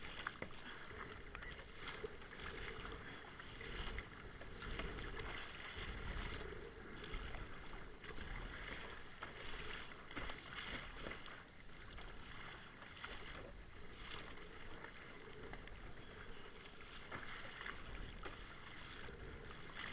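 Kayak paddle strokes through choppy sea water: the blades dip and pull with repeated splashes, and water slaps against the plastic hull, swelling and easing every second or two.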